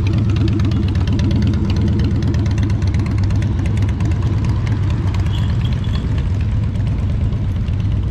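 Motorcycle engines running, a cruiser with two riders riding away up the road, its exhaust a steady low pulsing.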